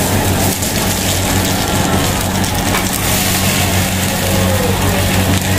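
Stall kitchen's gas stove burners running, a steady low hum under a constant rushing noise.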